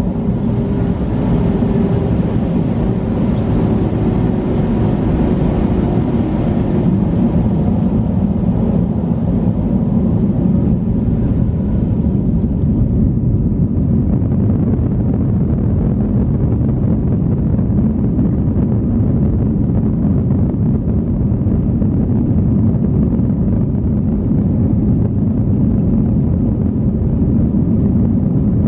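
Airbus A321 cabin noise: a steady, loud, low rumble from the jet engines and airframe, heard from inside the cabin. A fainter higher hiss fades away about halfway through.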